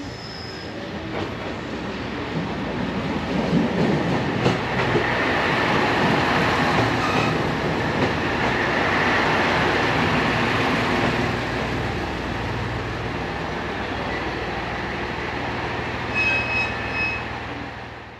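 A train running along a station platform: rail and wheel noise builds over the first few seconds as it draws close, stays loudest for several seconds, then settles to a steadier run. Near the end there is a brief high-pitched squeal or tone.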